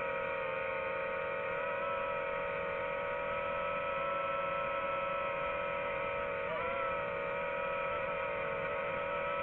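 Drone's electric motors and propellers whining steadily as several close, even tones, with a brief wobble in pitch about six and a half seconds in.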